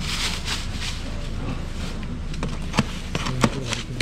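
Handling noise of bagged frozen seafood and styrofoam boxes: plastic rustling early on, then a few sharp knocks in the second half, over a steady outdoor background noise.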